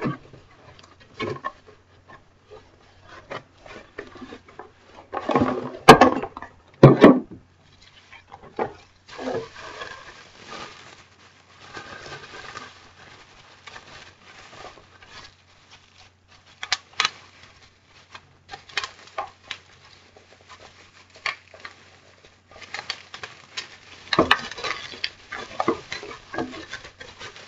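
Handling noise as a radio-control transmitter is taken out of its packaging: rustling and scraping with scattered clicks and knocks. The loudest knocks come about six and seven seconds in, and there is a busier spell of handling near the end.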